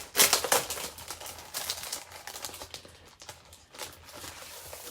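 A pack of Designer Series paper handled by hand: sheets and their packaging rustling, crinkling and clicking in short irregular bursts, busiest in the first second and then sparser.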